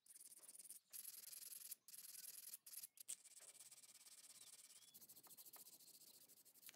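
Faint hissy rubbing or sanding on the small brass lighter's metal body, broken by a few brief dropouts in the first three seconds.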